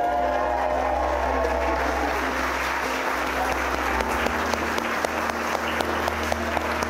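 A church congregation clapping steadily, a dense crackle of many hands, with music underneath.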